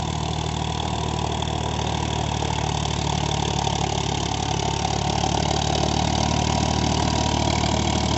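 Farmtrac 60 Supermaxx 55 hp diesel tractor engine running steadily under load, pulling an 11-tine cultivator through the soil in first gear high range. The steady engine sound grows slightly louder as the tractor comes closer.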